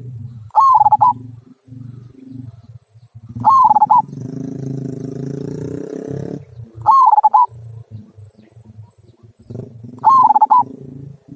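Zebra dove (perkutut) cooing: four loud, short, quavering calls, each about half a second long and about three seconds apart.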